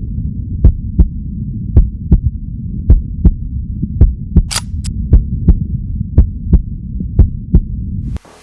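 Heartbeat sound effect: paired thumps about once a second over a steady low hum. Two short crackles come about halfway through, and the heartbeat and hum cut off suddenly near the end.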